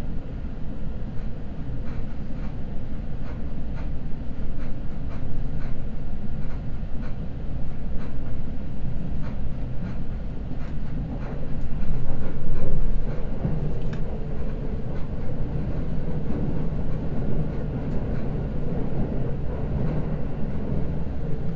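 Seibu Red Arrow limited express train running at speed, heard from inside the passenger car: a steady low rumble of wheels and motors with faint, regular clicks over the rail joints. The rumble swells briefly about twelve seconds in.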